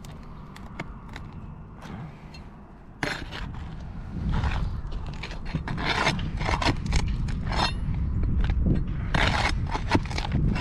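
Fiberglass asphalt shingles being pried up and worked loose: irregular scraping and rustling with sharp clicks, quieter for the first few seconds and then busier.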